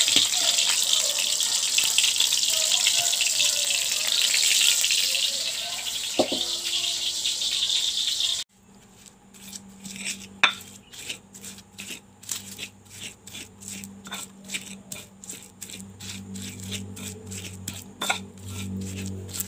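Chillies, shallots and garlic sizzling in hot oil in a wok, a steady hiss with a single metal clink about six seconds in. After a sudden cut about eight seconds in, a stone pestle grinds the fried ingredients on a stone mortar (cobek) in regular short rubbing strokes, a few each second.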